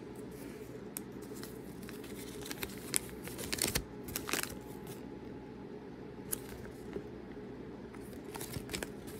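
Hands crinkling and tearing at the small printed wrapper of a Kinder Joy toy, with scattered light clicks of plastic parts; the crinkling is busiest a few seconds in.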